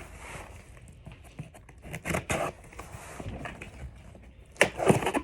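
Packaging being handled and opened: irregular rustling, scraping and tearing, with the loudest bursts near the end.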